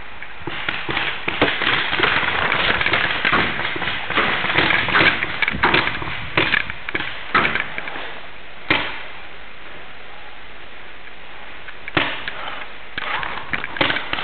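Paintball markers firing in rapid strings of sharp pops. The firing is dense for the first eight seconds, with one lone shot near nine seconds, and starts again about twelve seconds in.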